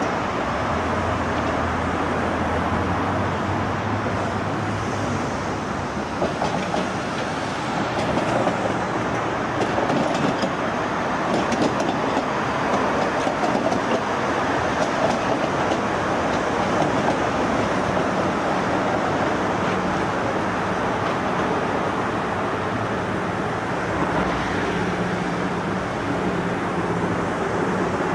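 Vintage Melbourne tram of the Seattle Waterfront Streetcar running along its track. Its wheels clatter on the rails, mostly around the middle, mixed with the steady noise of passing road traffic.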